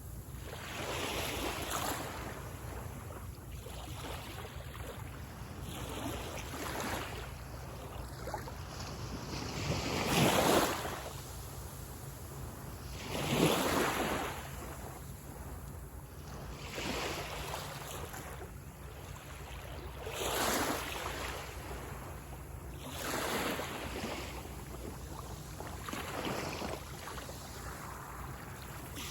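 Small waves breaking and washing up a sandy beach, one surge every three seconds or so. The two strongest break about a third of the way through and near the middle. A steady low rumble runs underneath.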